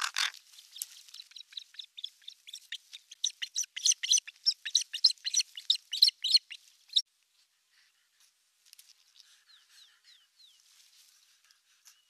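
Osprey nestlings giving rapid, high-pitched alarm calls at a common raven on the nest: a fast run of sharp notes that breaks off about seven seconds in, followed by fainter, short slurred calls.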